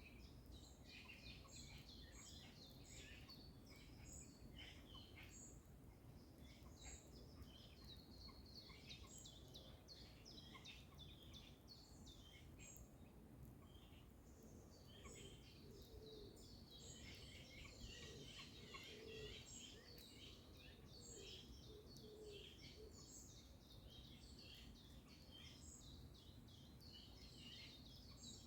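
Faint chorus of songbirds: many short, high chirps overlapping throughout, with a few lower notes in the middle, over a low steady background rumble.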